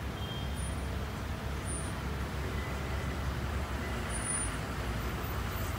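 Street traffic: a steady, low rumble of vehicles passing on a city street.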